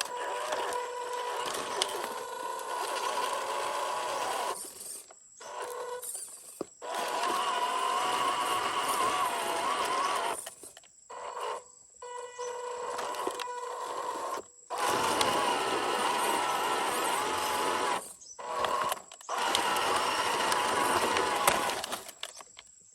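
Electric motor and gearbox of a 1/12-scale MN128 Jeep RC crawler whining, its pitch wavering with speed, stopping and starting again several times.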